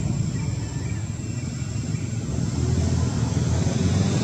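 A steady low rumble, growing somewhat louder near the end.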